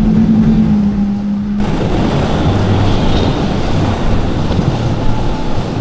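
Outboard motors of center-console boats running at high speed: one steady engine drone cuts off abruptly about a second and a half in, giving way to another boat's lower engine note under rushing water and wind noise.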